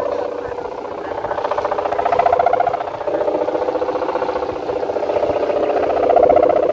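Lulop-type bamboo sendaren (kite hummer) on a flying kite, droning in the wind with a buzzing, pitched hum. It swells loudest about two seconds in and again near the end.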